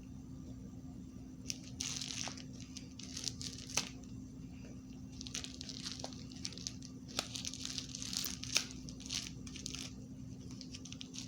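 A plastic bag packed inside a sock crinkling and crackling as it is squeezed and handled, in two irregular spells with small sharp clicks.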